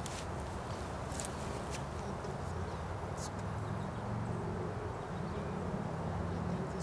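A steady low droning hum, with a few faint clicks in the first few seconds.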